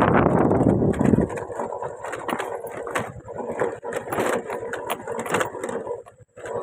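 A vehicle engine running under loud rushing noise that drops away suddenly about a second in. A quieter engine sound follows, with scattered knocks and clicks.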